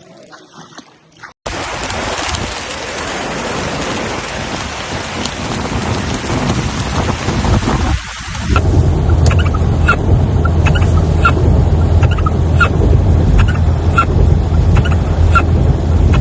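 Loud, even rushing noise of a heavy rainstorm, starting abruptly about a second and a half in. From about eight and a half seconds a deep steady rumble joins it, along with a string of short high chirps.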